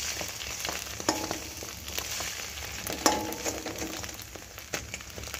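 Egg and onion omelette sizzling steadily in a hot steel wok while a metal spatula works it, with two ringing knocks of metal on the pan about a second and three seconds in, the second the loudest.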